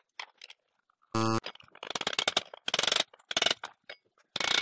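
A short buzzing electronic tone, then about two seconds of rapid metallic clicking and rattling from a wrench working on a chainsaw's centrifugal clutch to unscrew it.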